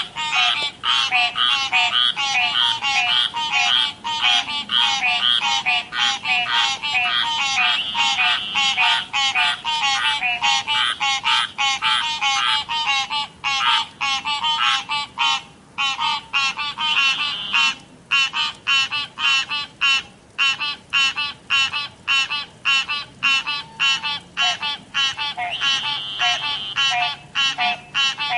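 Frogs croaking in a dense chorus: short calls repeat several times a second and overlap, with a few brief breaks past the middle.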